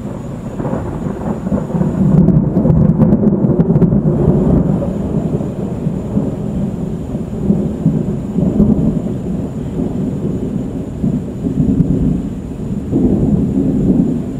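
Rolling thunder from a dry thunderstorm with no rain: a long, low rumble that builds about a second in, is loudest around two to four seconds, then swells again several times.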